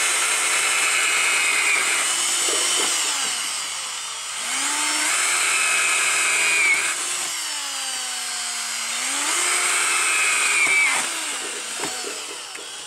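Cordless drill running in three long runs, boring through thin tin sheet. Its whine sags in pitch under load and climbs again as the bit frees.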